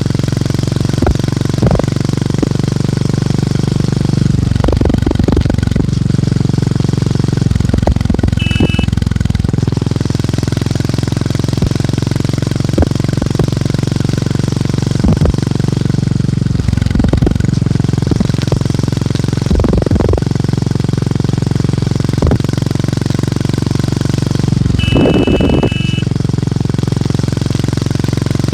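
Motorcycle engine and exhaust thumping steadily while riding. A short high beep sounds briefly about eight seconds in and again for about a second near the end.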